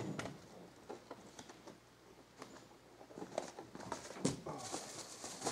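Scattered light clicks and rattles of rifle cartridges being pushed into a magazine from stripper clips, a few irregular clicks every second or so.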